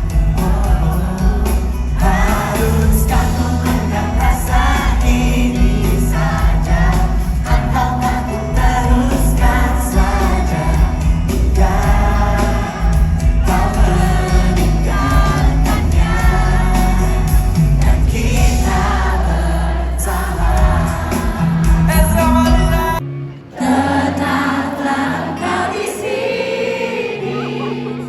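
Background music: a pop song with singing over a steady beat, the bass dropping out for a moment near the end before the song carries on.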